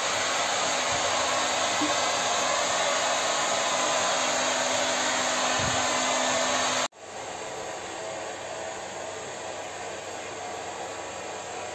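Hand-held hair dryer blowing steadily, a loud even rush of air with a low hum under it. About seven seconds in it breaks off abruptly and carries on at once, quieter.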